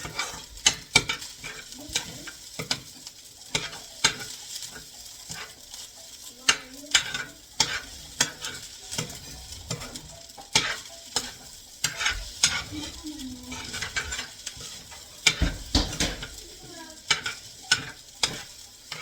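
Fried rice sizzling in a hot pan while a spatula stirs it, scraping and clacking against the pan many times at an uneven pace.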